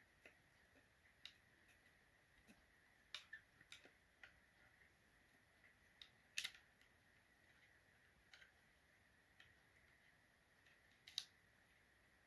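Faint, scattered clicks and taps of a CPU cooler's metal mounting backplate and screws being handled and pushed into a motherboard's mounting holes, the sharpest about 3, 6.5 and 11 seconds in. A faint steady high tone runs underneath.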